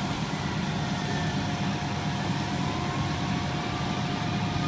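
Fire engine's diesel engine running steadily: a constant low drone with a faint, steady whine above it.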